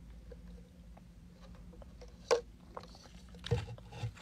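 Quiet room tone with a few faint ticks, one sharp click a little over two seconds in, and a brief soft low sound about three and a half seconds in.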